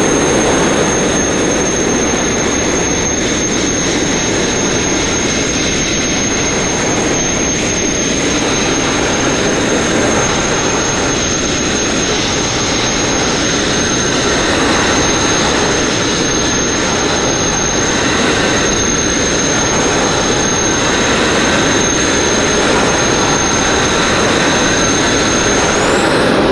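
Abrasive blast nozzle blasting grit against a steel narrow boat hull: a steady, loud rushing hiss with a thin high whistle held over it throughout.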